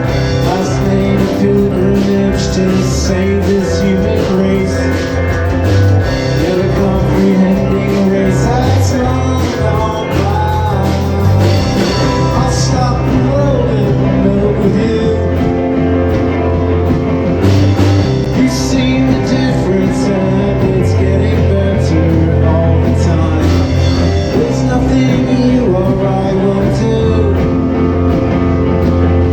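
Live band playing a rock cover: electric guitar and bass over drums, with no clear lyrics sung.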